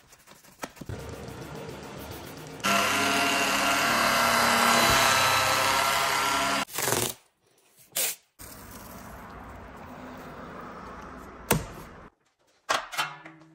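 Electric machine polisher running steadily for about four seconds, a dense whir with a steady whine. Shorter, quieter snippets of other detailing sounds, sharp clicks and brief dropouts come between quick cuts.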